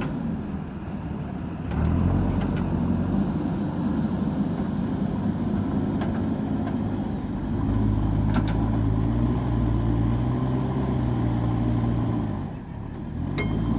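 Diesel engine of a JCB backhoe loader running under working load. It gets louder about two seconds in, dips briefly near the end and picks back up, with a few faint metallic clinks.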